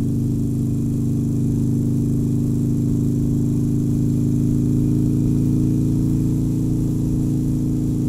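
Harley-Davidson Sportster Forty-Eight's air-cooled V-twin engine running at a steady cruising speed: an even drone that holds one pitch throughout.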